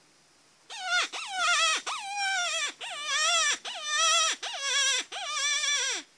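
Predator call playing a run of high, wailing distress cries to lure coyotes: the cries start just under a second in and repeat about once a second, each wavering and then sliding down in pitch at its end.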